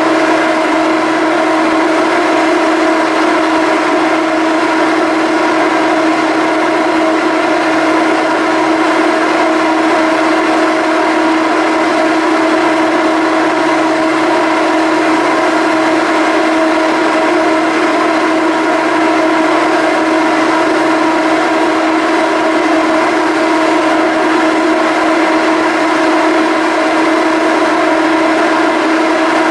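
Machinery of a BC Ferries Salish-class ferry running steadily: a loud, constant droning hum with one strong steady tone and several higher overtones, never changing in pitch or level.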